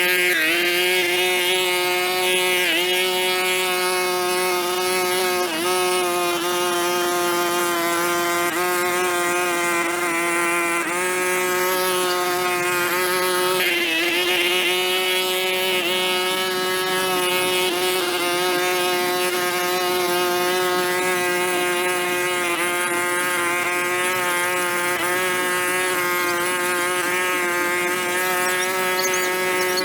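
A small motor running steadily with a high-pitched, buzzing drone. Its pitch sags briefly every two to three seconds, as if under momentary load.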